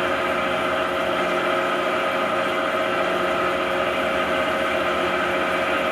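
A machine running steadily, a constant mechanical hum made of several steady tones, with no change in speed.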